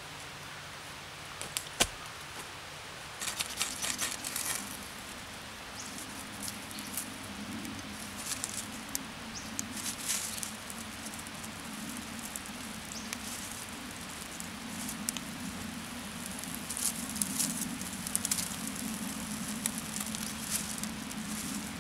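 Dry tinder and a bundle of thin twigs rustling and crackling as a small campfire is being lit. There is one sharp snap about two seconds in, and clusters of crackles come and go, the busiest at about three to four seconds, ten seconds and seventeen seconds in.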